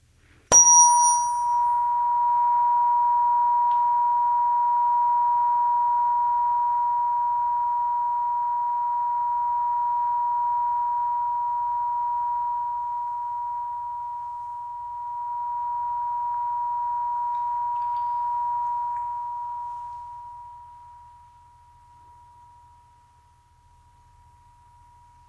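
A tuning fork from a Solfeggio set struck sharply, with a brief metallic clang, then ringing as one steady high pure tone that sustains for about twenty seconds and fades to a faint ring near the end.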